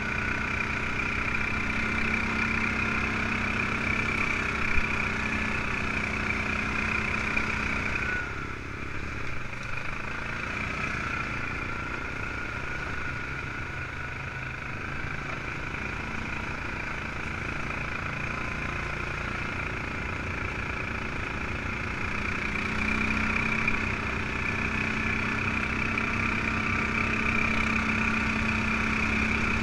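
ATV engine running as it is ridden, easing off about eight seconds in and picking up again near the end. One short knock about five seconds in.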